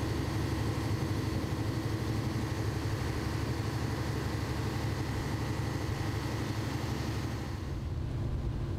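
Fishing boat's engine running steadily under way, a low drone with a hiss above it; the hiss thins out near the end.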